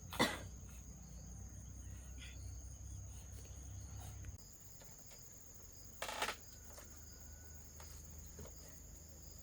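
Insects keep up a steady, high-pitched drone. Two brief sharp noises cut across it, a loud one just after the start and a softer one about six seconds later.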